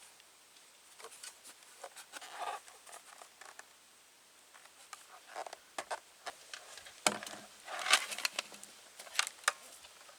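Objects being handled: irregular clicks, taps and rustles, coming thicker and louder from about seven seconds in.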